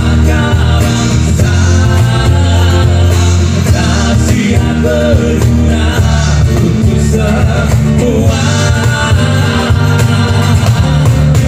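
Live band performance: two male vocalists singing a Malay song over electric bass, acoustic guitar and cajon, with a strong, steady bass line underneath.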